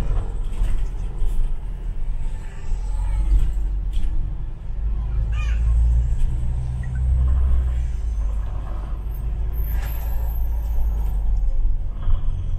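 Inside a moving London bus: steady low engine rumble and road noise, with scattered knocks and a short hiss late on.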